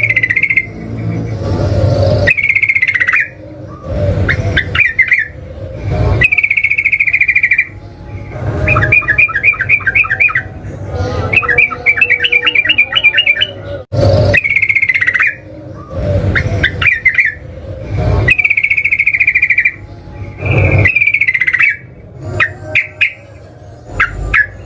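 Yellow-vented bulbul (trucukan) singing: loud bubbly phrases repeated every couple of seconds, with runs of rapid chattering trills partway through.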